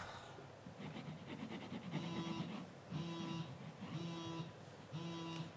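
Telephone ringing: a repeating electronic ring about once a second, starting about two seconds in.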